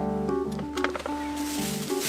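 Background music: a keyboard melody over a held low bass note, with a few light clicks partway through.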